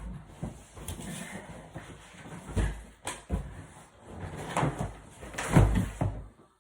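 Irregular knocks and clunks with a deep rumble of handling noise, the loudest clunks about two and a half seconds in and again near the end.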